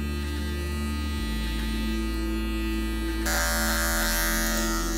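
Electric hair clipper running against the side of a client's head, a steady buzz whose pitch shifts a few times as it works.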